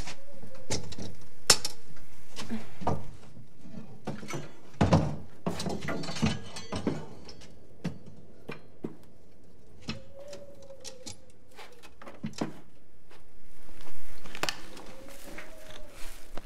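Scattered small knocks, clicks and clatter of objects being handled and set down, with a faint wavering tone coming and going twice.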